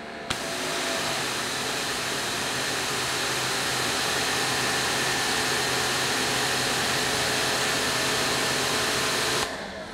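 Greenworks Pro 2700 psi electric pressure washer running under load with the trigger held. Its induction motor and pump hum under a steady hiss of water jetting from a 15-degree nozzle at about 2,500 psi. The sound starts suddenly as the trigger is squeezed and cuts off abruptly shortly before the end when it is released.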